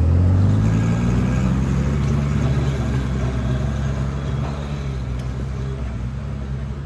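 ATV engine pulling away under a heavy load of logs on its trailer, rising in pitch as it gets going, then running steadily and slowly fading as it moves off.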